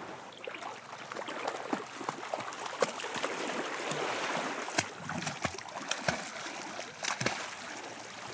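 Lake water splashing and lapping in the shallows as a dog paddles in close, with many small irregular splashes.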